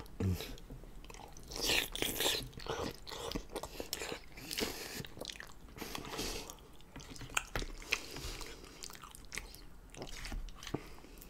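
Close-miked chewing and wet mouth sounds of a person eating lasagna, uneven and irregular, with short clicks of a metal fork in an aluminium foil pan.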